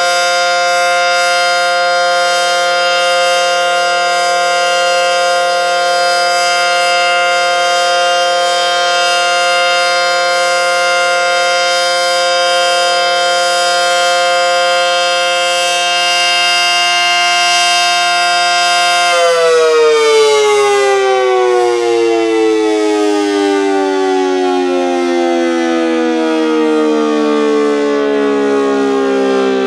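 ACA Banshee 115 outdoor warning siren sounding a steady, harmonic-rich tone at full speed. About 19 seconds in, its power is cut and the pitch slides steadily down as the siren winds down.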